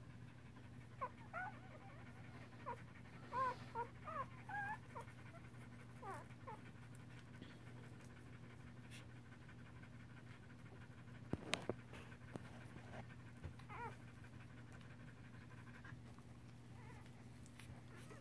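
Faint, short, squeaky dog whimpers, a string of them in the first five seconds and a few more later. A quick cluster of sharp clicks comes about two-thirds of the way through.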